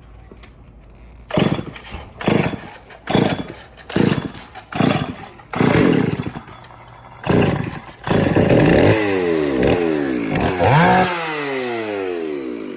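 Gasoline chainsaw being warmed up: a series of short throttle revs about once a second, then held running with its pitch sliding down and back up before it drops away at the end.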